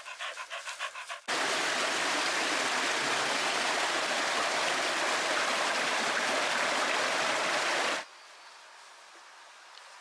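A dog panting quickly, about five breaths a second, then a sudden cut to loud, steady rushing water of a forest stream, which stops abruptly about eight seconds in, leaving a quieter steady hiss.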